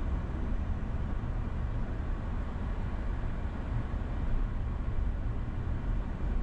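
Steady road noise of a car travelling on a freeway: a continuous rumble of tyres and air with no breaks or distinct events, heaviest in the deep low end.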